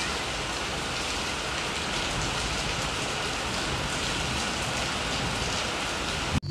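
A steady, even hiss like rain falling, with no other sound standing out; it cuts off suddenly at the very end.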